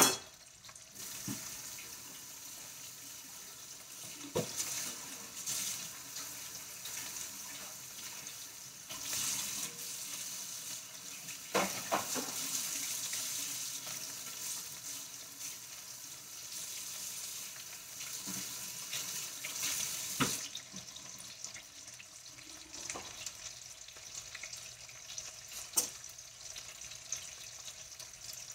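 Spam slices sizzling in a frying pan while a kitchen tap runs and something is washed in the sink, with a few knocks of dishes. The tap shuts off about two-thirds of the way in, leaving the quieter sizzle.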